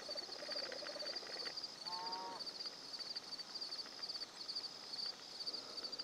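Insects calling in a steady chorus of evenly repeating high pulses, with one short bird call about two seconds in.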